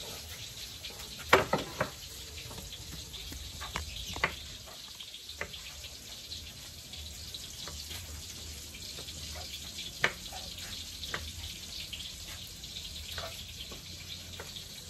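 Knife knocking on a wooden cutting board while slicing chicken gizzard: a cluster of sharp knocks about a second and a half in, then scattered single taps, over a steady hiss.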